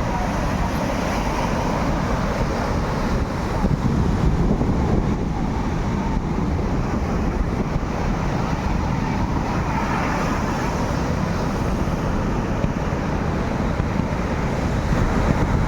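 Tractor engine running steadily, mixed with wind buffeting the microphone and surf.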